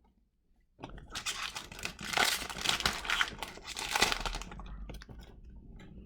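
A hockey card pack's wrapper being torn open and crinkled: a dense crackle that starts about a second in and lasts about four seconds.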